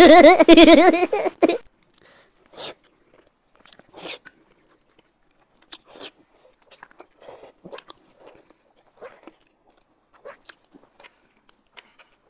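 A loud quick voice saying "xing xing xing" ("OK, OK, OK") in the first second and a half. Then two people eat liangpi cold noodle sheets with chopsticks: soft slurps, chewing and lip smacks in short, scattered, quiet bursts.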